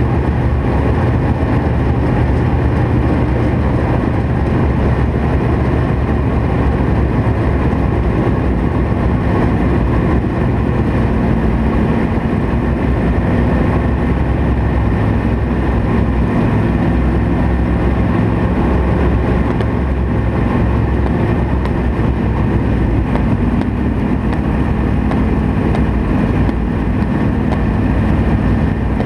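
Dirt late model race car's V8 engine heard from inside the car, running loud and fairly steady throughout with only small shifts in pitch.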